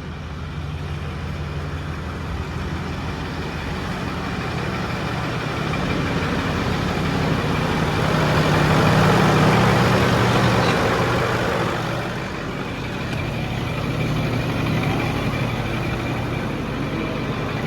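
Ford 6.4 L PowerStroke twin-turbo V8 diesel idling steadily shortly after being started, growing louder for a few seconds midway. The engine is showing a little blow-by.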